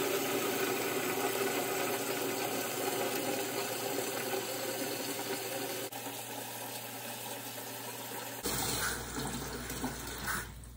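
Cold tap water running steadily into a 5-gallon bucket, filling it. The sound of the flow changes about eight and a half seconds in, and the water stops near the end.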